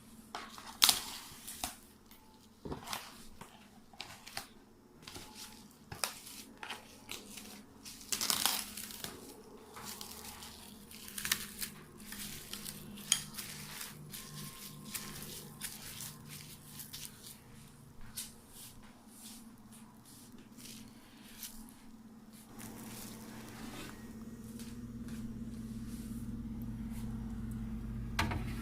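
Irregular crinkling, crumpling and tearing of plastic with scattered knocks of kitchen things, such as wrapping or covering a container of marinated chicken. In the last few seconds a steady low hum sets in and grows louder.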